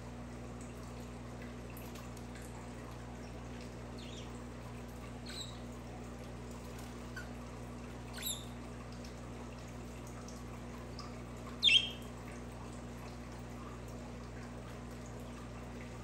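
Budgerigars giving a few short, high chirps, spaced out, the loudest about three-quarters of the way through, over a steady hiss and low hum.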